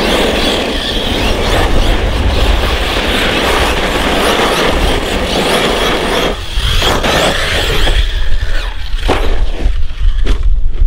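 ARRMA Kraton 6S 1/8-scale RC truck driving hard on dirt: its brushless motor whines at speed and its tyres churn through loose dirt. The sound turns choppy, with short sharp hits, in the last few seconds.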